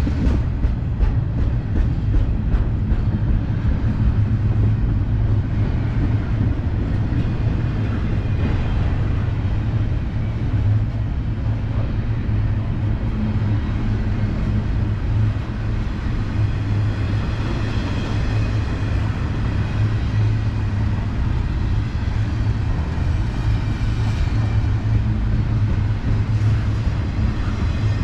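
Double-stack intermodal well cars of a freight train rolling past close by. The steel wheels on the rails make a steady rumble that holds at an even level.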